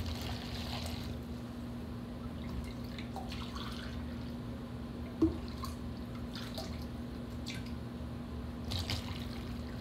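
Chicken broth pouring from a measuring cup into a plastic container and dripping, with a few light clinks of kitchen utensils, the loudest about five seconds in. A steady low hum runs underneath.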